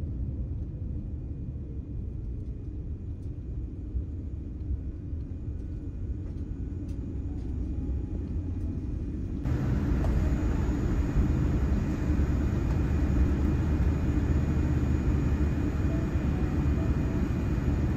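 Cabin noise of a Boeing 787-10 airliner rolling on the ground: a steady low rumble from the engines and wheels, with a faint steady whine. About halfway through it suddenly becomes louder and fuller.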